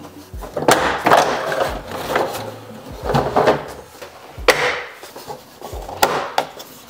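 Hard plastic truck grille and grille surround knocking, scraping and clicking against each other as they are handled, turned over and pressed together to seat the grille.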